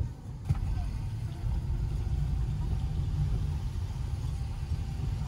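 Steady low rumble, like a vehicle's road and engine noise, with one sharp click about half a second in.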